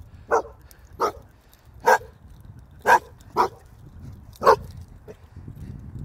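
A dog barking, six sharp barks at uneven gaps with a faint seventh about five seconds in.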